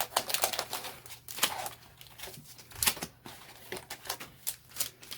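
Foil Pokémon TCG booster packs being picked up and handled, giving irregular crinkles and light clicks.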